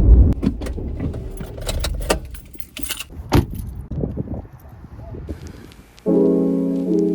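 Keys jangling with a run of clicks and knocks, one sharper knock in the middle. About six seconds in, piano music starts.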